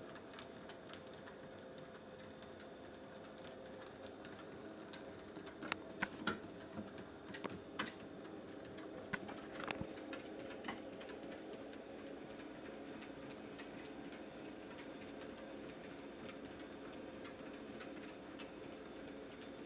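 Treadmill running with a steady hum and a regular ticking as a small dog walks on the moving belt. A handful of sharp clicks and knocks come between about six and eleven seconds in.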